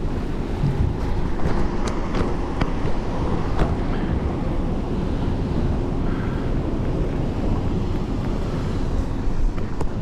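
Wind buffeting the microphone over sea water washing around a boat, a steady low noise. A few light clicks come in the first few seconds.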